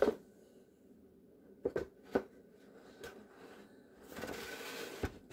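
Foam wing panel handled and slid onto the spar tube of a foam plank fuselage: a few light knocks, then a soft rubbing scrape about four seconds in as the wing slides along the tube, ending in a low thump as it seats against the fuselage.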